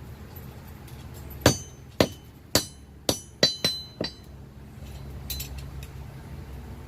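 Hand hammer striking a hot mild-steel block on an anvil: seven blows in about two and a half seconds, each with a short metallic ring, forging down the bottom of the block.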